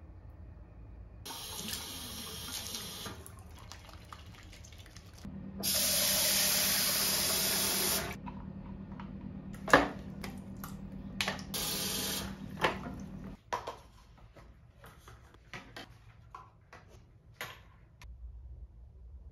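Bathroom sink tap running in short bursts as empty plastic tubes are rinsed out, water splashing into the basin and a plastic cup. A sharp knock about halfway through and light plastic clicks and taps follow as the tubes are handled.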